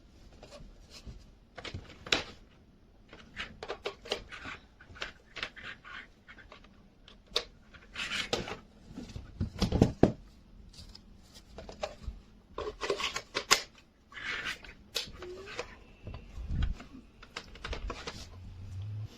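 Handling noise: irregular clicks, taps and rubbing of things being moved about, with several louder knocks scattered through it.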